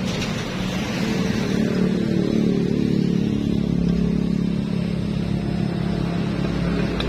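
An engine running steadily, with a pitched hum that strengthens about a second in.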